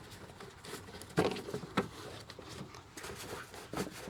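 Light knocks, clicks and rustling of a plastic air intake duct being handled and fitted back onto the throttle body, with the sharpest knock about a second in.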